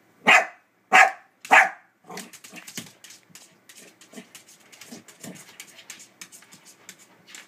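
A dog barks three times in quick succession, then a rapid run of quieter clicks and scuffles.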